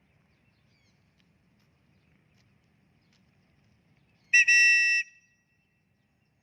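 A single short vehicle horn blast about four seconds in: one loud, steady, flat tone made of several pitches at once, lasting under a second and cutting off sharply.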